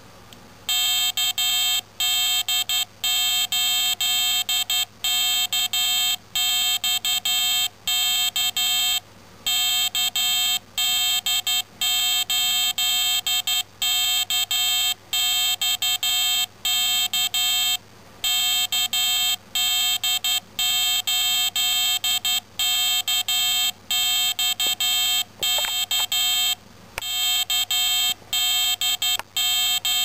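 An old Apple IIc speaker driven straight from an Arduino's pin 13 beeps out the amateur radio callsign KD8KXK in Morse code: a buzzy beep keyed on and off in dots and dashes. The callsign repeats in a loop, with a longer pause about every nine seconds.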